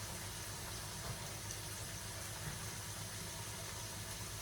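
Steady low hum under an even hiss, kitchen background noise with no distinct events.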